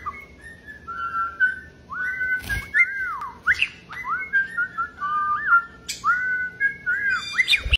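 Pet parrot whistling a tune: a run of clear whistled notes that swoop up, arch over and hold level, one after another with short breaks.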